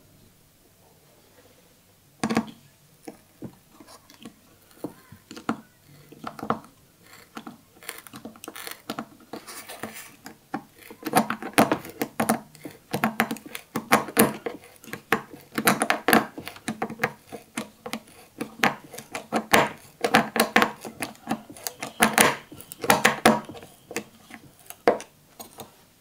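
Screwdriver tip of an old Soviet pocket knife turning a wood screw into a small wooden block: sharp metallic clicks and scrapes in irregular strokes, sparse at first, then dense and louder from about eight seconds in.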